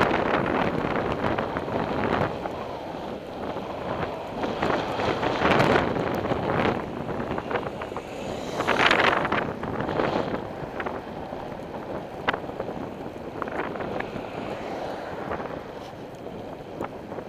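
Wind rushing over the microphone of a camera on a moving bicycle, mixed with road noise and small sharp rattles. About nine seconds in, a louder swell rises and fades as a car goes by.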